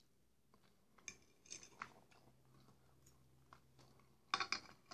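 Soft, close chewing and mouth sounds of someone eating kholodets (meat aspic), then a quick cluster of sharp clicks near the end as the fork works in the bowl.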